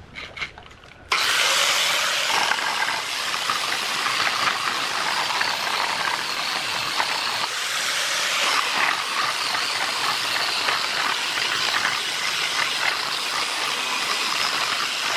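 A few light taps, then an angle grinder fitted with a sanding disc starts about a second in and runs steadily, the disc sanding across the face of a wooden board.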